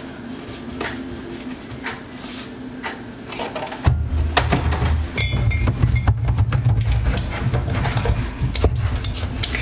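Background music with a pulsing bass beat that comes in about four seconds in, over scattered light clicks and knocks.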